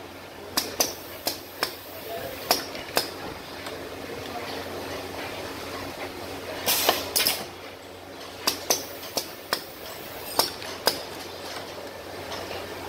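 Automated riveting station on a stepper-driven rotary indexing table running through its cycle: a series of sharp mechanical clacks at irregular spacing, with a short hiss about seven seconds in, over a steady low machine hum.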